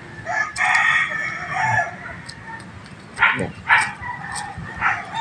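A rooster crowing once, a call of about a second and a half, followed by a few short sharp sounds in the last two seconds.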